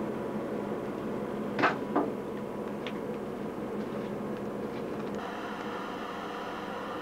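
Two sharp knocks close together, about a second and a half in, over a steady hiss and hum, with a few faint ticks after them.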